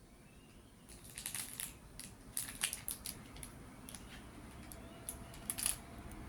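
Daikin mini-split indoor unit starting up: irregular sharp crackling and clicking in clusters, with a faint steady hum coming in about halfway.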